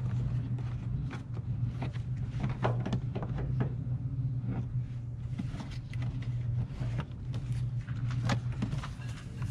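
Rustling, scraping and small clicks of a wiring harness being worked and pushed through a tight gap by a car's hood hinge, with a steady low hum underneath.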